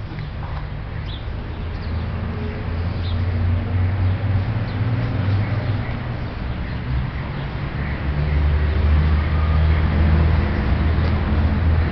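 Low, steady rumble of a vehicle engine, growing louder about eight seconds in, with a few short bird chirps over it.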